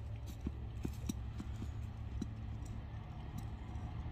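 Footsteps in rubber boots on wet grass and mud, with the plastic bucket's handle clinking in a few light, irregular clicks during the first couple of seconds, over a low steady rumble.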